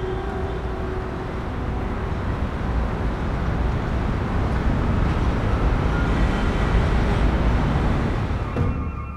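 Road traffic noise, a dense low rushing rumble that swells louder through the middle and then fades out near the end.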